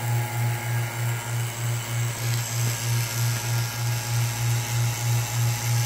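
Low electrical hum from a running DIY magnetron sputtering rig while its plasma is lit, swelling and fading a little over twice a second.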